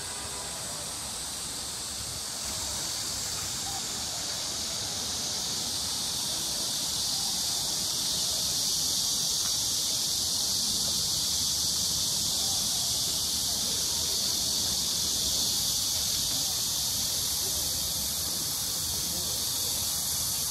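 Steady, high-pitched insect chorus buzzing without a break, stepping up in loudness a few seconds in.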